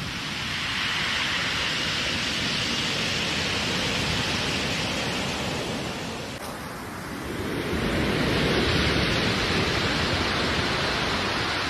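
Steady rushing noise with no distinct tones, easing off about six seconds in, then swelling back louder and deeper.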